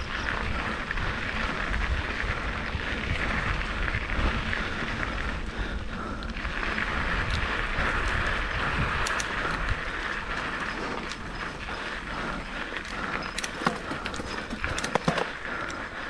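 Mountain bike rolling along a dirt trail covered in dry leaves: continuous tyre and riding noise with a steady low rumble, and a few sharp clicks or rattles from the bike near the end.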